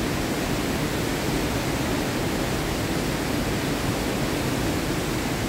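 Davis Falls in Pokhara, Nepal, plunging into its deep gorge: a steady, even rush of falling water with no change in level.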